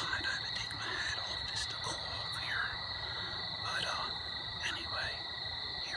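Evening insect chorus: a steady high-pitched drone with a second, lower steady tone under it, and short sliding calls breaking in about once a second.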